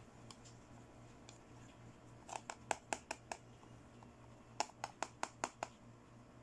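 Two quick runs of sharp clicks, about five and then about six in a row, from small hard toy pieces and packaging being handled.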